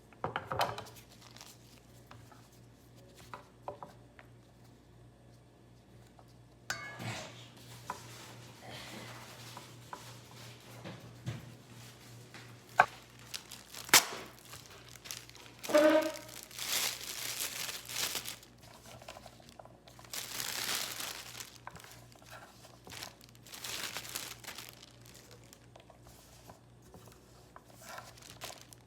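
Plastic packaging crinkling and rustling as it is handled, in irregular stretches, with two sharp clicks about halfway through and a few light knocks of containers.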